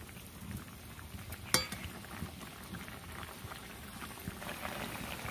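Watery potato and fritter curry bubbling at a boil in a pot, a steady crackly bubbling, with one sharp clink about a second and a half in.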